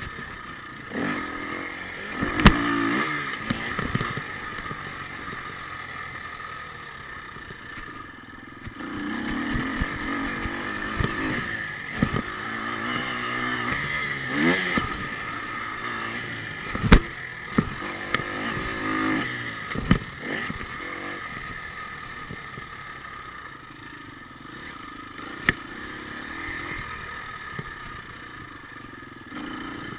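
Husqvarna FE 250 enduro bike's single-cylinder four-stroke engine revving up and falling back again and again while riding a dirt track, with several sharp knocks along the way.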